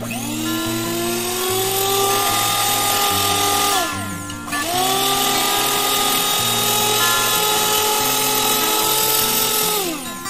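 KAISA VILLA electric hand mixer's motor running with its chrome beaters fitted: a whine that rises in pitch as it spins up, cuts out briefly about four seconds in, starts again, and winds down near the end. Acoustic guitar music plays underneath.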